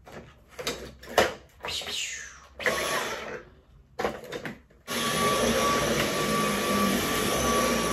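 Cordless stick vacuum cleaner running over carpet, heard in several short stretches that start and stop, then running steadily with a high whine from about five seconds in.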